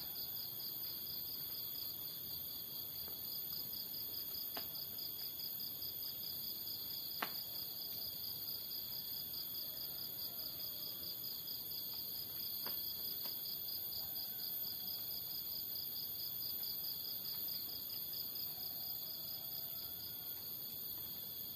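Steady chorus of insects, a high-pitched pulsing trill, with a single short click about seven seconds in.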